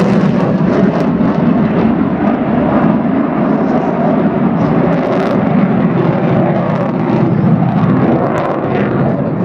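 Fighter aircraft flying low in a display, its engine giving a loud, steady roar.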